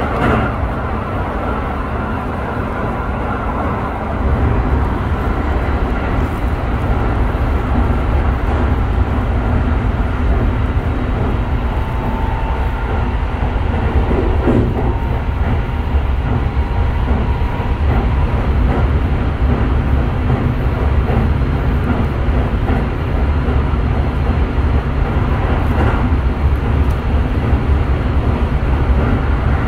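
Toei 5500 series electric train with a Mitsubishi SiC-VVVF drive running, heard from inside the passenger car: a steady rumble of wheels on rail and motors that grows a little louder about four seconds in.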